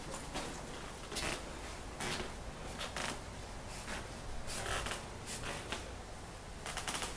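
Irregular soft rustles and scrapes, about one every half second to a second, from someone walking with a handheld camera, over a faint steady hiss.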